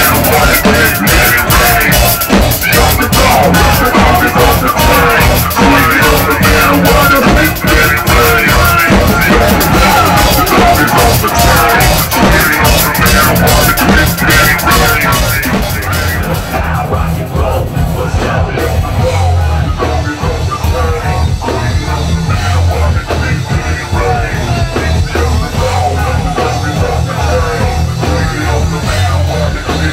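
Loud rock music with a drum kit and guitar. About eighteen seconds in, the cymbals and high end drop away and a heavier, steady bass carries on.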